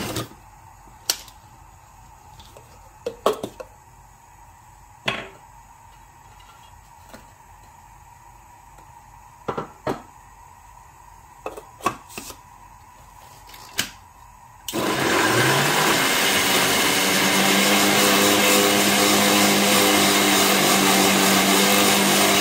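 Food processor crushing biscuits into crumbs. The motor winds down at the start, followed by a stretch of sharp plastic clicks and knocks as the lid and bowl are handled. About fifteen seconds in, the motor starts again, briefly rising in pitch, and runs steadily.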